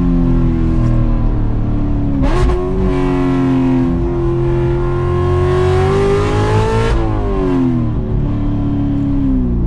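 Cammed 6.2-litre V8 of a manual C7 Corvette being driven hard: revs fall, jump up about two seconds in, then climb steadily under throttle. About seven seconds in they drop sharply and keep falling off the throttle.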